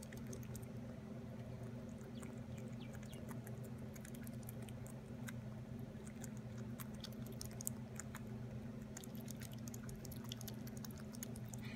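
Young fox squirrel chewing a piece of fruit held in its paws: soft, quick, irregular clicks and nibbles, over a steady low hum.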